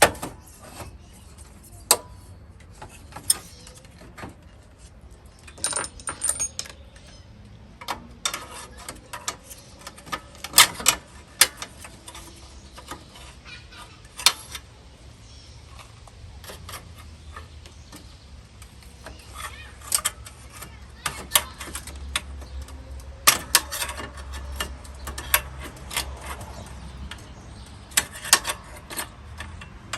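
Hand tools and small metal parts clinking and clicking irregularly, in scattered sharp knocks, during hands-on work on the headlight assembly.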